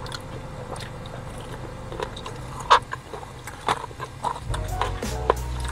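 Close-up biting and chewing of sauced fried chicken, with scattered wet mouth clicks and smacks that become more frequent after about two seconds. Music fades in near the end.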